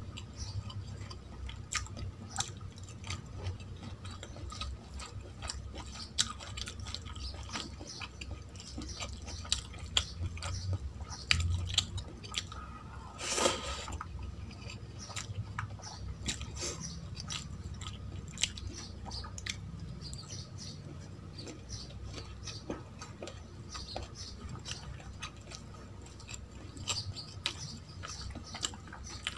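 Close-miked chewing of hand-mixed rice and curry, with many small, irregular wet mouth clicks and the soft squelch of fingers working rice on a steel plate. One louder sound comes about 13 seconds in.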